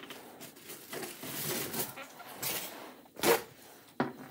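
Paper towel rustling as it is handled, with one brief louder sound about three seconds in.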